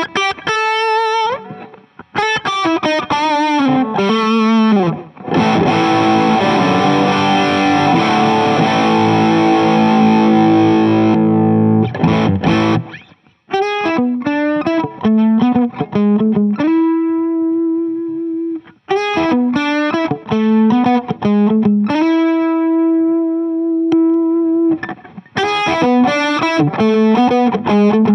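Electric guitar through a King of Tone clone overdrive pedal and a Fuchs ODS amp simulation, played as overdriven lead noodling: single-note lines with string bends, a chord strummed about five seconds in and left ringing for several seconds, then phrases ending in long sustained notes.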